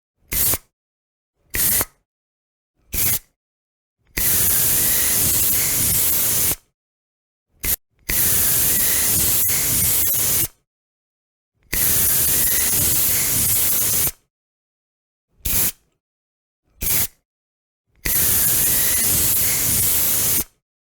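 Deodorant spray hissing in a series of bursts: short puffs of under half a second mixed with four longer sprays of about two and a half seconds, each starting and cutting off sharply.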